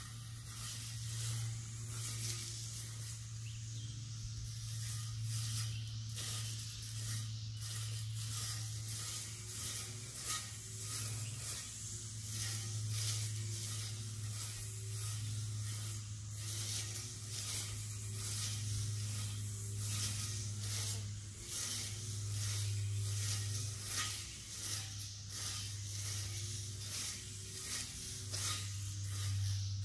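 Battery-powered weed eater with a metal blade running steadily, a low motor hum under a hiss, its pitch wavering up and down every second or two as it swings through the grass, with many small ticks.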